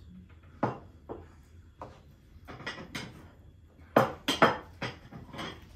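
Metal knife and fork clinking and scraping against the serving tray and plates as roast lamb is carved and served. A string of short clinks, the loudest three close together about four seconds in.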